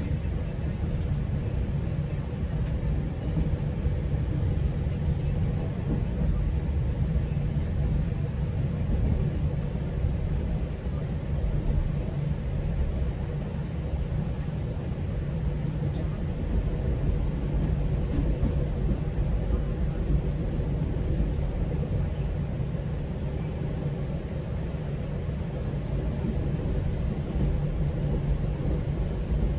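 Steady low rumble of a GO Transit commuter train running along the track, heard from inside the coach.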